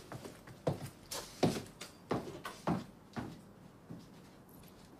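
Footsteps walking away across a room floor: a series of soft knocks, roughly two a second, dying out about four seconds in.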